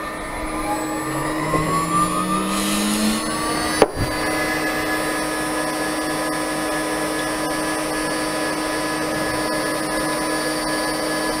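CNC router spindle with a 6 mm two-flute end mill starting up on aluminium plate, with a rising whine over the first three seconds. A sharp click follows at about four seconds, then the machine runs steadily with a high whine.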